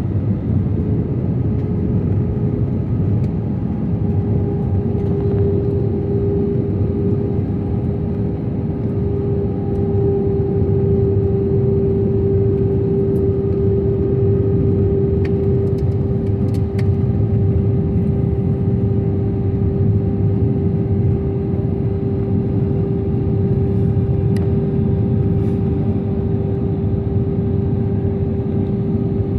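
Airliner cabin noise during descent: the steady rush of jet engines and airflow, with a constant humming tone.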